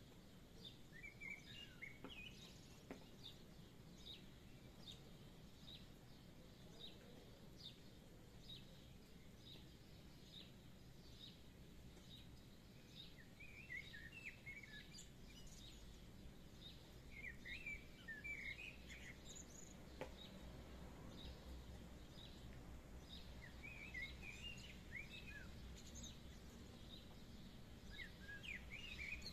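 Faint songbirds: one bird repeats a short, high chirp a little over once a second, while others break in with brief twittering phrases a few times, over a faint low background rumble.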